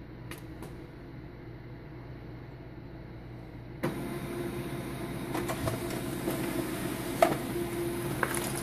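HP LaserJet P2015dn laser printer starting a print job after its Go button is pressed. About four seconds in, its mechanism starts running with a steady hum and light clicks as it feeds and prints a page, a sign that the repaired formatter board is working again.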